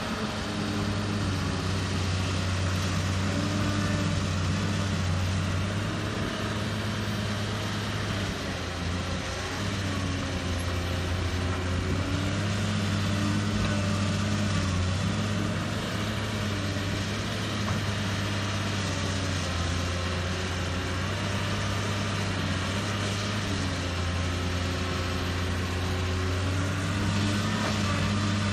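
Cat 320 hydraulic excavator's diesel engine running steadily under load while it digs and loads dirt, its pitch dipping and rising slightly as the hydraulics work.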